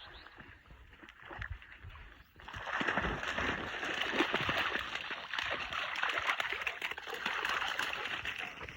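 Dog splashing through water, starting suddenly about two seconds in and going on as a dense, continuous splashing.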